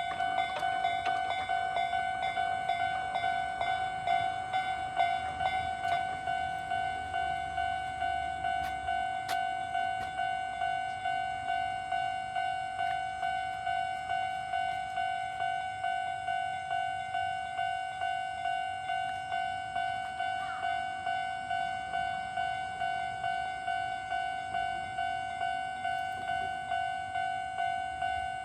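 Japanese railway level-crossing warning bell, the electronic clanging tone ringing steadily at about two strokes a second.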